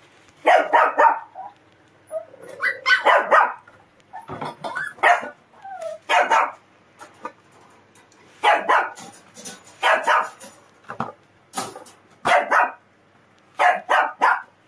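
A dog barking over and over in short runs of quick barks, a run every second or two with brief gaps between. It is a timid dog barking from nerves.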